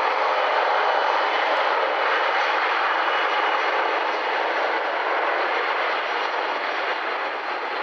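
Jet airliner's engines passing by, a steady rushing noise that slowly fades.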